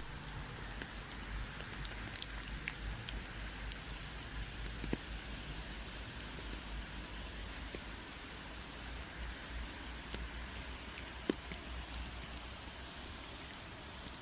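Steady rainfall with scattered drops striking close by; a couple of them stand out as sharper drips. A low steady rumble runs underneath, and a few brief faint high chirps come about two-thirds of the way through.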